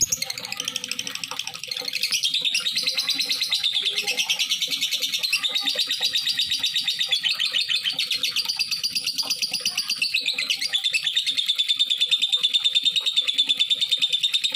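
Lovebird chattering in one long, rapid, high trill that runs on without a break, shifting slightly in pitch a couple of times. It is the long continuous chatter of a 'gacor' lovebird, used as a lure to set other lovebirds singing.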